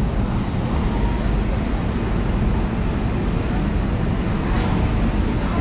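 Railway platform ambience beside a standing EMU local train: a steady low rumble with passengers' voices in the background.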